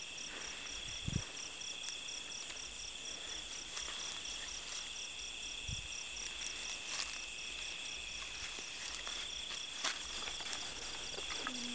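Night insect chorus: crickets trilling steadily at several high pitches, one of the trills pulsing evenly. Two faint low thumps come about a second in and near six seconds.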